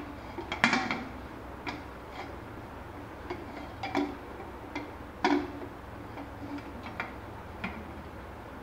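Aluminium pressure cooker lid knocking and clinking against the cooker's rim as it is fitted and twisted shut: about a dozen irregular sharp clicks, the loudest near the start and about five seconds in.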